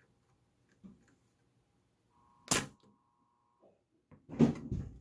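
Spring-loaded desoldering pump (solder sucker) clearing molten solder from motherboard through-holes: a single sharp click about halfway through, then a loud cluster of snaps and clatter near the end as the pump is fired.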